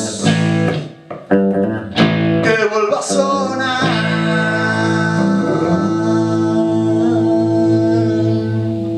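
Guitar-driven rock song at its close: a few sharp band hits on the guitars, then from about four seconds in a final chord held and left ringing.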